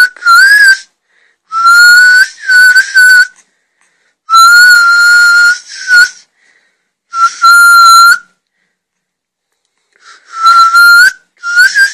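A person whistling a run of about eight or nine notes at much the same pitch. Some notes are short and some are held for about a second, most gliding slightly upward at the end, with short breaks between them.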